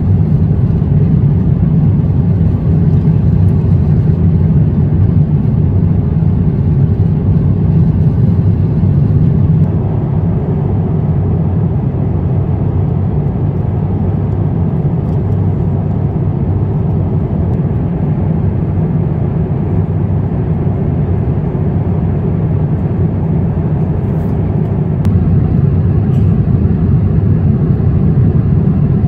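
Steady low rumble of airliner cabin noise on an Airbus A350-900, from engine and airflow noise. It is slightly quieter from about ten seconds in until near the end.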